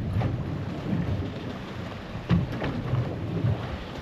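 Wind buffeting the microphone on a small boat in a rolling sea: a gusting low rumble, with a couple of sharp knocks about two and a half seconds in.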